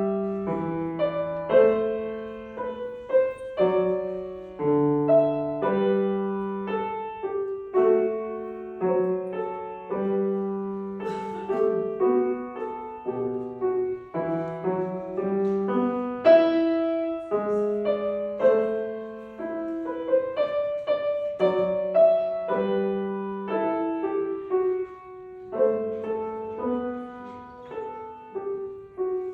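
Solo piano playing an arrangement of a Russian folk song: a melody over a lower accompaniment, each note struck and then fading.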